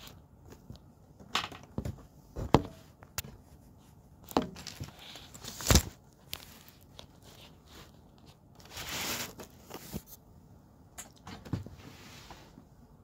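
Handling noise on a phone's microphone as the phone is moved about: a few sharp knocks and bumps, with a longer rustle about nine seconds in.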